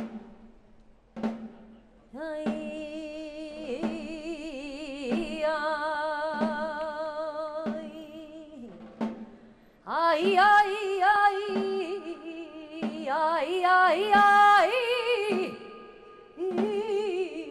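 A solo singer with a wide vibrato performs a slow, lamenting line over an orchestral accompaniment with a steady drum beat about once every second and a quarter. The voice grows much louder about ten seconds in.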